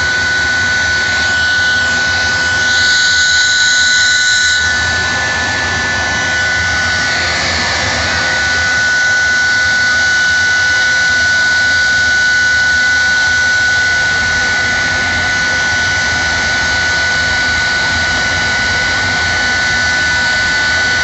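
Jet engines of a jet-powered semi truck running at the start line, a loud steady high-pitched whine with rushing noise that holds level, a little brighter for a couple of seconds early on.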